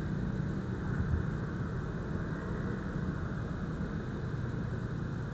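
A steady low rumble with no distinct sounds standing out of it.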